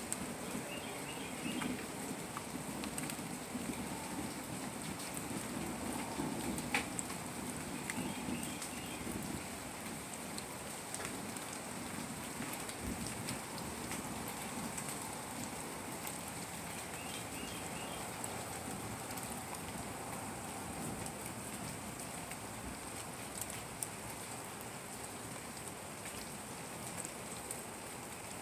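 Steady rain falling on a garden's broad leaves, rocks and soil, a continuous hiss sprinkled with scattered individual drop ticks.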